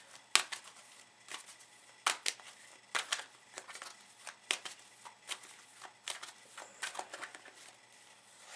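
A deck of tarot cards being shuffled by hand, with short, irregular snaps and slaps of the cards against each other.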